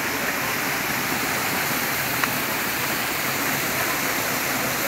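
Steady rush of a rocky hill stream cascading over boulders, with one small sharp click about two seconds in.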